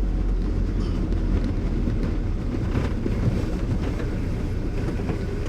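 A car driving along a street, its engine and tyres making a steady low rumble.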